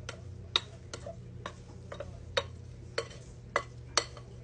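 Sharp light clicks, about two a second and unevenly spaced, from a plastic dough scraper knocking against a glass mixing bowl as sticky, soupy dough is worked loose and tipped out. A low steady hum sits underneath.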